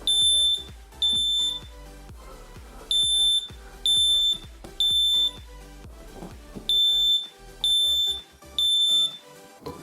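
Accent photoelectric smoke detector in alarm after a smoke-spray test: loud, high-pitched beeps about half a second long, in sets of three with a pause between. This is the temporal-three evacuation pattern.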